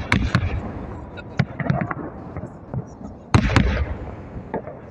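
Fireworks salute shells bursting overhead. A few sharp bangs come right at the start, then scattered smaller pops, and the loudest pair of bangs a little past the middle, each trailing off in a low rumbling echo.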